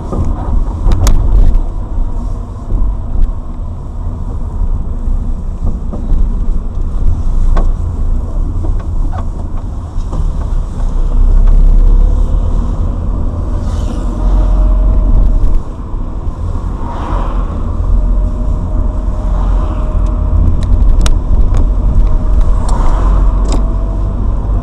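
Road noise inside a moving Lada Granta liftback, with occasional sharp knocks from the suspension as the steering is swung from side to side. The knocks come at irregular moments and are the suspension fault being tracked down, heard on turns and over bumps.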